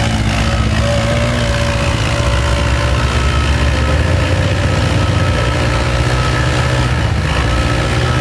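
ATV engine running hard at fairly steady high revs while its tyres spin, throwing dirt as it climbs a mound.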